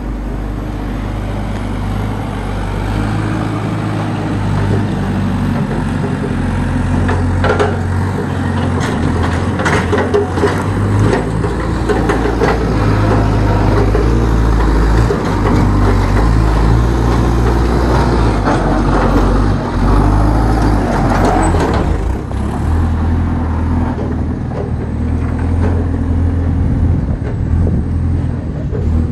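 Excavator's diesel engine running under varying load, with a few sharp clanks as it works.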